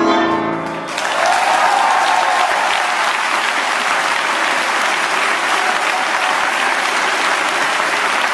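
Tango music ends on a final chord about a second in, and an audience breaks into steady applause that carries on.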